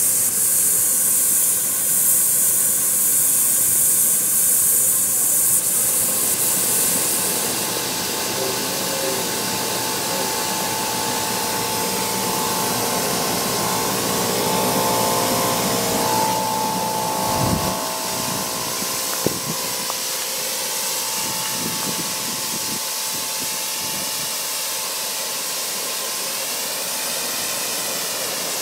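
A 1.5-inch scale live steam locomotive standing with steam hissing steadily from the top of its boiler, loudest in the first several seconds. A held whistle-like tone sounds for a few seconds in the middle.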